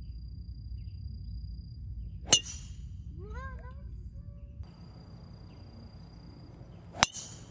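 Two golf tee shots with a metal-headed driver: a sharp, ringing clack as the clubhead strikes the ball about two seconds in, and a second one near the end.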